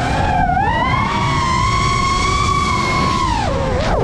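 FPV quadcopter's brushless motors whining, the pitch climbing as the throttle opens about half a second in, holding high, then dropping again near the end, over a steady rush of wind and prop wash.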